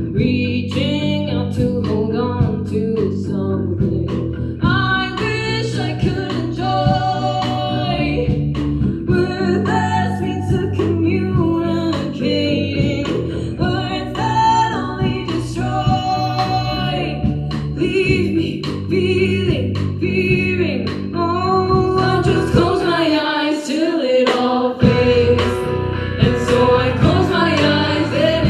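Live band playing a song: a woman singing over acoustic-electric guitar, electric bass and drums. The bass and low drums cut out for about two seconds near the end, then come back in.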